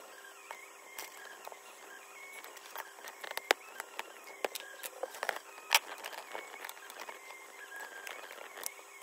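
Plastic opening pick and spudger clicking and scraping in the seam of a Microsoft Surface Book base as the cover is pried open, with scattered small clicks and two sharper ones about three and a half and six seconds in.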